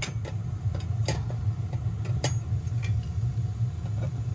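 H.B. Smith cast iron gas boiler's burners firing with a steady low rumble, freshly lit after the no-heat fault. Several sharp metallic clicks and taps from tools being handled sound over it, the clearest about a second in and about two seconds in.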